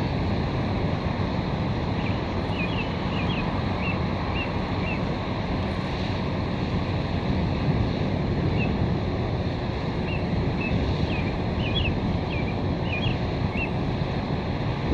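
Steady low rumble of wind on the microphone over outdoor background noise. A bird chirps in two runs of short high notes, about two seconds in and again about ten seconds in.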